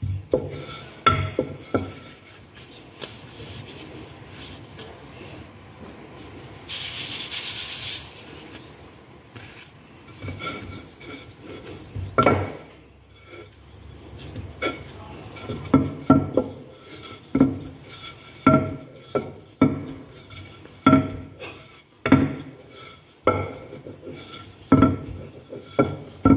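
Wooden rolling pin rolling out dumpling wrappers on a stone countertop: the pin rubs back and forth over the dough and knocks on the counter, about once a second through the second half. A short hiss comes about a quarter of the way in.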